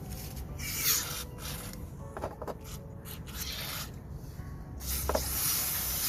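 Rust being scrubbed and sanded off a corroded metal refrigerator compressor casing, in several rasping strokes of uneven length, the longest near the end.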